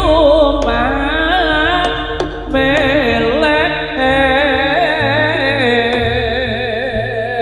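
Live Javanese jaranan music: a wavering, richly ornamented lead melody over a steady held drone tone, with low percussion underneath.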